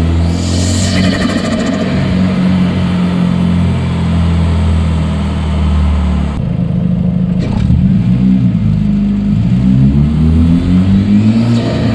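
2013 Hyundai Genesis Coupe's turbocharged four-cylinder engine pulling steadily under throttle, then lifting off suddenly about six seconds in with a brief turbo flutter. It then revs up and down several times.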